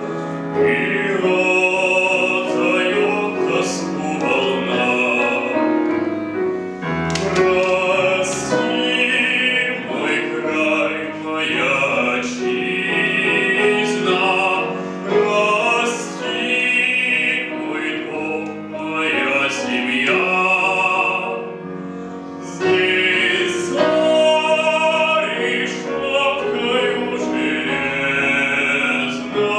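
A male classical singer sings a Russian folk song in an operatic style with vibrato, accompanied by piano, with brief breaths between phrases.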